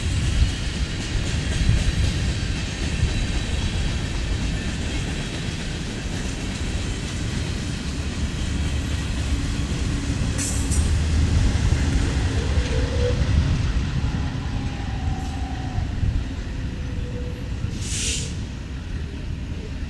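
Freight train rolling past: a steady rumble and clatter of freight-car wheels on the rails, with faint wheel squeals in the second half. Two short high hisses come about halfway through and near the end, as the rear GE C44-9W distributed-power locomotive goes by.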